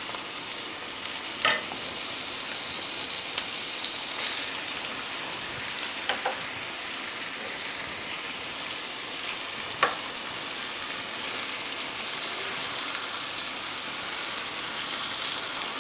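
Tomato-and-green-chilli masala sizzling steadily as it fries in a nonstick kadai on a gas burner. Three brief faint clicks come about one and a half, six and ten seconds in.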